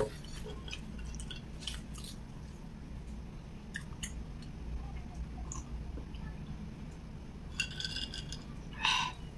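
Close-up eating sounds: fingers working sticky rice and soft chewing, then sips of iced apple juice from a glass. Near the end come two louder clinks as the glass of ice is moved and set down, over a steady low hum.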